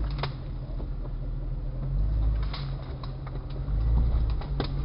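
Lifted 1999 Jeep Cherokee XJ heard from inside the cabin, its engine running low as it crawls over trail obstacles, the rumble swelling and easing. Several sharp knocks and clicks from the body and suspension are heard through it.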